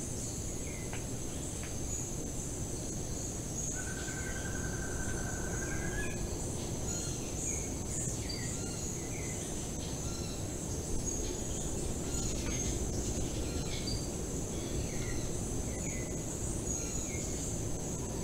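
Tropical forest ambience: a steady high-pitched insect drone with many short bird chirps scattered through it. About four seconds in, one wavering call is held for about two seconds, rising slightly at the end. A low steady rumble runs underneath.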